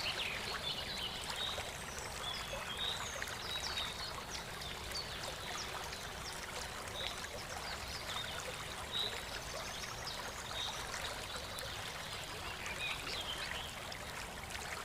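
Water trickling steadily, like a small stream, with many short high-pitched sounds scattered over it.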